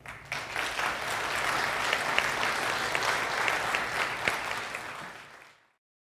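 Audience applauding at the end of a lecture, a steady patter of many hands that fades away about five seconds in.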